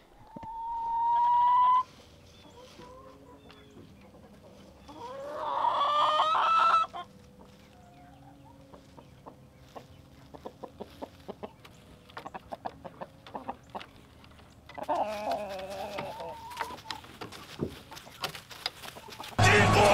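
Chickens in the coop: two long rising crows, the first about a second in and a louder one around five seconds in, then scattered short clucks and clicks and a bout of calling around fifteen seconds in. A sudden loud burst of sound cuts in right at the end.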